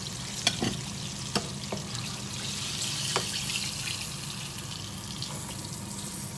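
Oil sizzling steadily in a frying pan as chicken pieces fry, with a few light clicks of a metal spoon against the pan in the first half.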